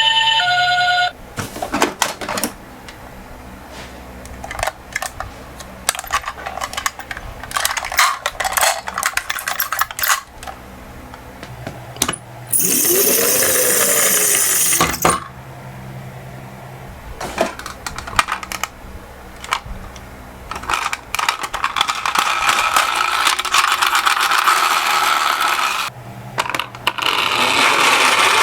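Toy minicars clicking and clattering as they roll and bump down a slope, in irregular runs of small metallic knocks. About halfway through there is a louder rushing noise lasting a couple of seconds.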